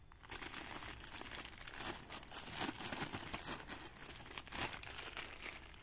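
Thin plastic sleeve crinkling irregularly as a pair of glasses is worked out of it by hand.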